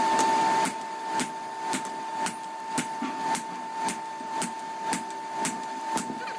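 Steel being forged under evenly repeated hammer blows, about two a second, over a steady motor hum. A brief louder rush of noise comes at the very start.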